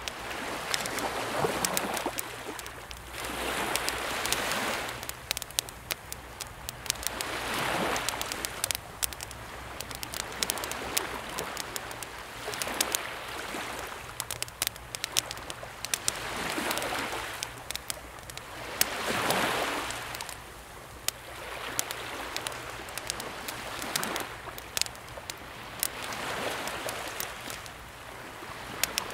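Calm sea waves washing in and drawing back in slow swells about every three to four seconds, under the sharp, irregular crackles and pops of a wood campfire.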